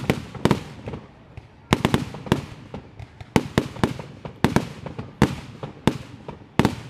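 Aerial fireworks bursting: a rapid, irregular run of sharp bangs, often two or three close together, each with a short echoing tail, with a brief lull about a second in.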